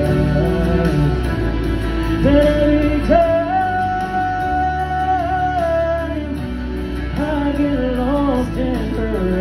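Male singer performing live over his own Yamaha MODX8 keyboard accompaniment, with sliding vocal runs and one long held high note about three seconds in.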